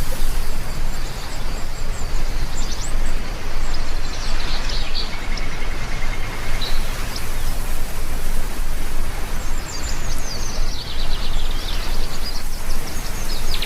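Steady heavy rain hiss with birds chirping over it: scattered high chirps a few seconds in, and a rapid falling run of notes in the second half.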